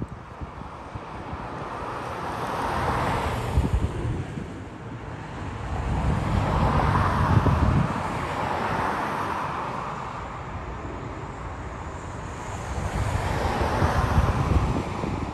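Wind buffeting the microphone over the broad, distant roar of a Boeing 787-8 Dreamliner's jet engines passing overhead; the sound rises and falls several times.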